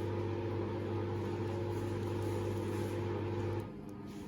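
Washing machine motor humming steadily, then cutting out abruptly about three and a half seconds in, as the drum pauses in its cycle.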